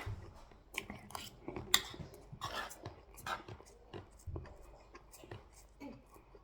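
Close-up eating sounds: a man chewing and smacking his mouth, with irregular small clicks throughout.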